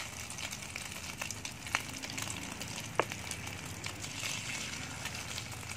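Egg and fish-paste omelette frying in hot oil in a steel wok: a steady sizzle with scattered fine crackles. A metal ladle in the wok gives two sharp clicks, about a second and a half apart, near the middle.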